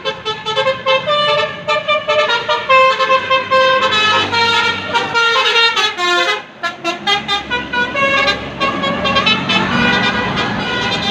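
Bus 'basuri' musical horn, a melodic multi-tone air horn, playing a tune as a string of held notes that step up and down, with a quick falling slide about six seconds in. A low rumble comes in underneath from about seven seconds.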